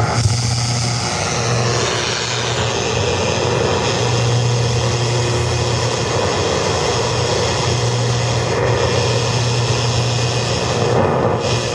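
Shortwave signal received on a home-built crystal radio set and played over loudspeakers: a steady low drone with static hiss and a few faint steady tones, which the uploader takes for HAARP transmissions.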